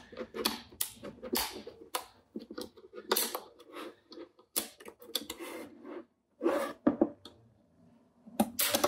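Plastic hinge cover on a Huawei laptop's display being pried off: an irregular run of sharp clicks and short scrapes as its clips let go one after another.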